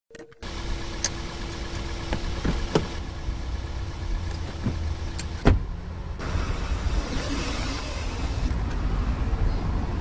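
Car driving, heard from inside the cabin: a steady low rumble with a few sharp clicks, the loudest about five and a half seconds in.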